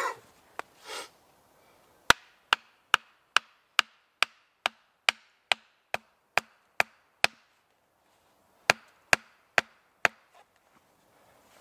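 A hatchet striking the top of an upright wooden stake to drive it into the ground, in sharp, evenly paced wooden knocks: thirteen at about two a second, a short pause, then four more. A thump and rustle of handling comes just before the knocking.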